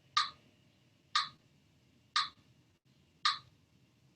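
Steady ticking: one short, sharp tick about every second, evenly spaced, over a faint steady high-pitched tone.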